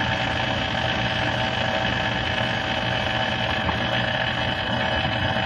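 Vintage Sunbeam stand mixer running at a steady speed, its electric motor giving an even hum as the beaters whip thick chocolate brownie batter in the bowl.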